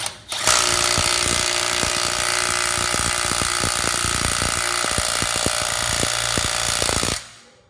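Milwaukee M12 3/8-inch cordless impact wrench hammering on a stubborn car lug nut, on power setting 2, with the trigger held down; it starts about half a second in, hammers steadily for about six and a half seconds, then stops.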